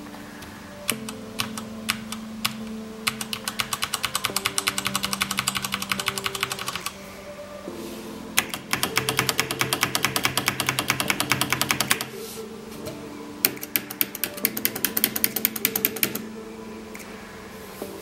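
Mechanical keyboard with Cherry MX Red linear switches being typed on. A few single keystrokes come first, then two quick runs of fast typing, then a handful of slower single presses near the end.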